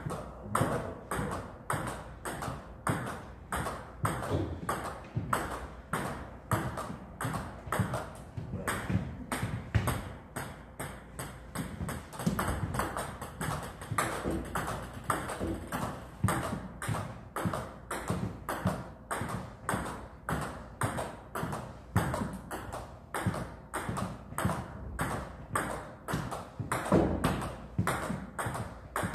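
Table tennis ball hit back and forth between two rubber paddles and bouncing on the table, a quick steady run of clicks, a few a second.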